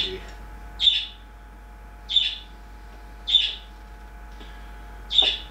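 A bird chirping: five short, high chirps about a second apart, over a faint steady hum.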